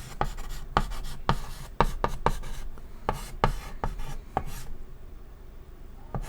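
Chalk writing on a chalkboard: a quick, irregular run of short tapping and scraping strokes that stops about four and a half seconds in.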